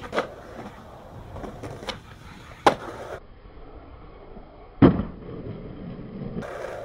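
Skateboard tricks: several sharp clacks of the board, with wheels rolling on concrete and asphalt between them. The loudest is a heavy landing thud about five seconds in, as the board lands at the bottom of a stair set.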